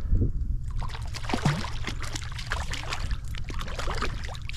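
Water splashing and sloshing in a trout stream, irregular and continuous from about a second in, as a hooked trout is played at the surface. Under it is a steady low rumble of strong wind on the microphone.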